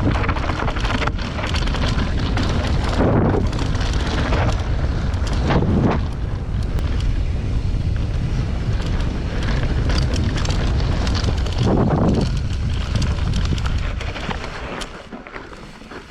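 Wind buffeting a GoPro and mountain-bike tyres rumbling over a rough trail at speed, with many short rattles and knocks from the bike. It dies down near the end.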